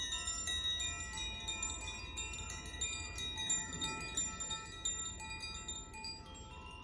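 Hand-played tuned wind chimes of the Koshi and Zaphir kind: many bright notes struck in quick succession, ringing on and overlapping, the jangling easing slightly near the end.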